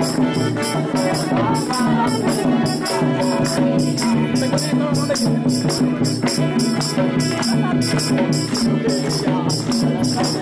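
Music: a song with a voice over a fast, even rhythm of high percussion beats.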